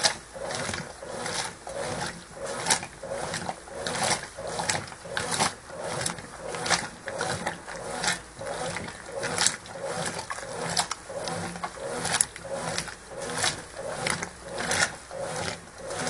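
Brastemp Ative 11 kg top-load washing machine agitating with the lid open: the agitator swishes back and forth through foamy wash water, the motor and sloshing pulsing about three strokes every two seconds.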